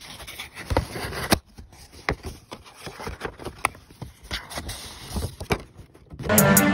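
Cardboard packaging and a paper insert being handled close to the microphone: irregular scrapes, taps and rustles. Music with a beat starts near the end.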